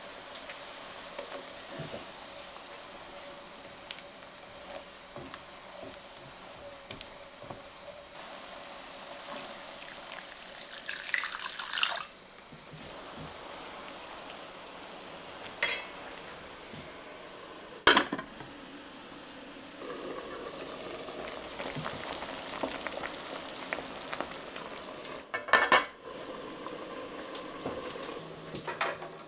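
Wine-and-stock liquid simmering in a stainless steel sauté pan, a steady bubbling hiss. Several sharp metal clinks come as tongs and a lid meet the pan.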